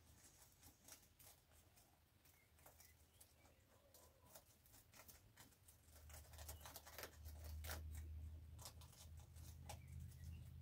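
Rabbits crunching and nibbling dry feed, faint quick irregular clicks. A low steady rumble comes in about halfway.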